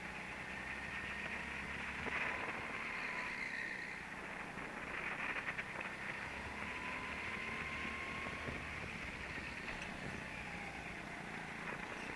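Go-kart driving laps of an indoor track, heard through a camera on the kart: a steady noisy running sound with a faint whine that slowly rises and falls.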